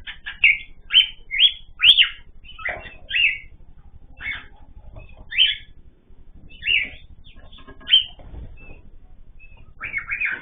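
Cage birds chirping: a run of short, sharp chirps, close together at first, then more spaced out, with a quick cluster near the end.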